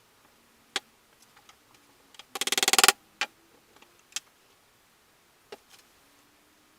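Workshop handling sounds: a few scattered sharp clicks and knocks, and about two and a half seconds in, a loud half-second run of very rapid clicks.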